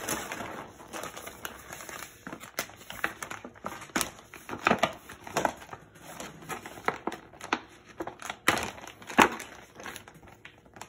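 Plastic packaging bags crinkling and rustling as they are handled and opened, in irregular bursts of crackle, the loudest about nine seconds in.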